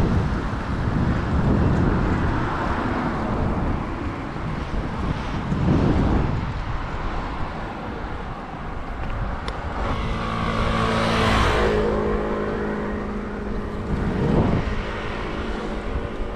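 Wind buffeting the microphone of a camera on a moving bicycle, a rough, uneven rumble. About ten seconds in, a motor vehicle passes, its engine a steady hum that swells and fades over a few seconds.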